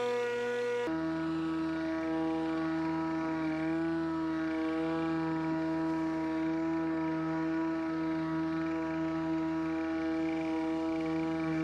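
Pellenc Rasion 2 Easy battery lawnmower running with a steady electric whine of several tones. About a second in, the pitch drops suddenly to a lower steady hum.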